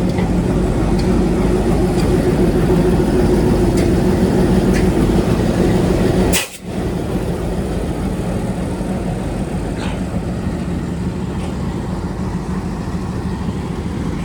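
Twin diesel locomotives running with a steady engine drone. The sound breaks off briefly about six and a half seconds in, then the drone carries on.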